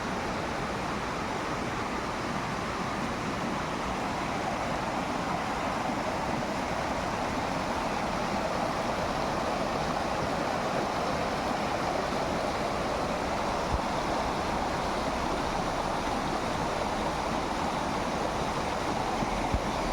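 Steady rushing of falling water, even and unbroken, with one faint tap about fourteen seconds in.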